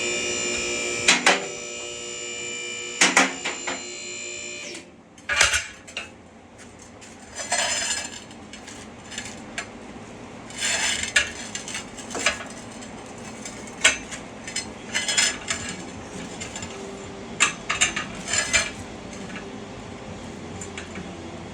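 Electric motor of a vehicle lift humming steadily as it raises the Jeep, with a few metal clicks, stopping about five seconds in. After that come scattered metallic clanks and clinks of tools and metal parts being handled.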